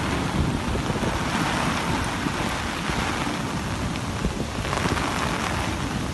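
Torrential gota freda downpour pouring onto standing floodwater: a steady dense rushing hiss, with wind gusting over the microphone as a low irregular rumble.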